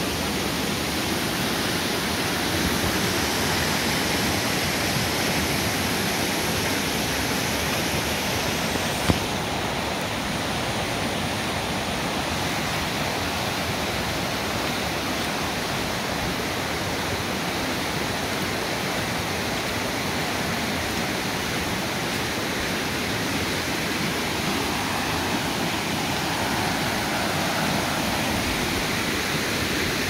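Waterfall and stream water rushing in a steady hiss, with a single sharp click about nine seconds in.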